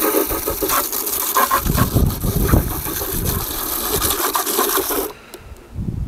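Water from a running tap rinsing the plastic dirty-water tank of a Deebot X1 Omni robot vacuum station: a steady rush with water sloshing and the tank knocking, until the water stops suddenly about five seconds in.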